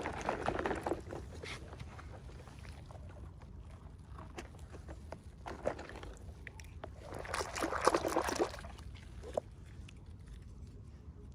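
Packaging and small toy pieces being handled during an unboxing: two spells of crinkling rustle, one at the start and one about seven to eight and a half seconds in, with a few light clicks between.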